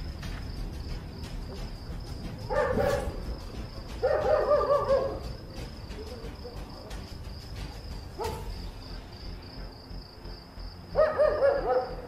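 Dogs barking in four short bouts, the second and last ones longest. Under them, crickets keep up a steady high chirping.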